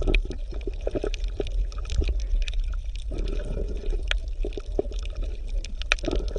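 Underwater water sound: a steady deep rumble with scattered bubbling pops and gurgles.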